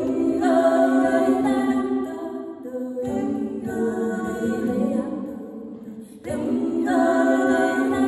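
Four women's voices singing a cappella in close harmony, a vocal arrangement of a Norwegian springdans folk tune. The singing comes in phrases, with brief breaks about three and six seconds in.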